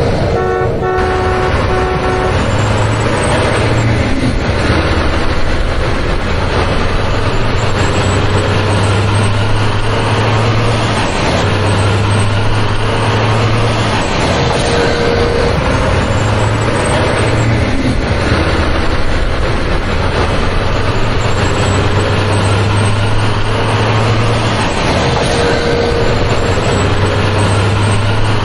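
Steady heavy-truck engine rumble, a recorded vehicle sound effect laid over the toy play rather than anything the hand-pushed toys themselves make.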